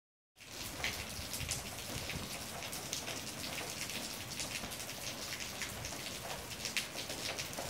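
Steady rain falling, with many separate drops ticking on hard surfaces.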